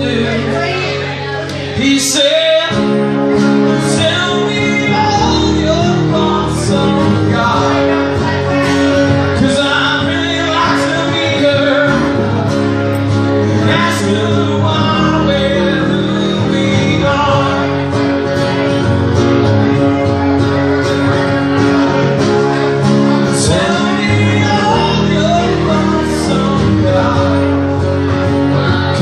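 Live country music: two acoustic guitars strummed behind a harmonica, then a man singing lead at the microphone, with a fresh loud start about two seconds in.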